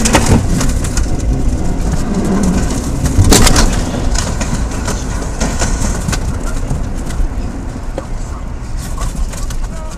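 Heavy vehicle skidding past right alongside a stopped car on an icy road, heard from inside the car: a loud, dense rumble with sharp knocks at the start and a louder impact about three seconds in, then dying away.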